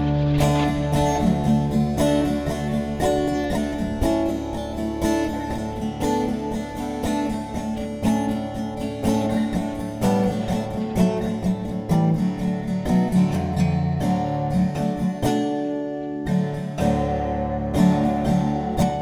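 Background music played on guitar, plucked and strummed.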